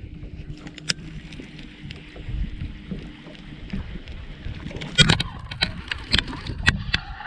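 Knocks and clicks aboard a fishing boat on the water: a faint steady hum for the first few seconds, then several sharp knocks and clicks about five to seven seconds in, the first the loudest.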